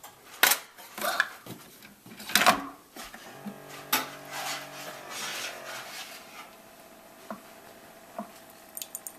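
Hard objects clattering and banging together: several sharp loud knocks in the first four seconds, a ringing tone for a few seconds in the middle, then a few lighter knocks.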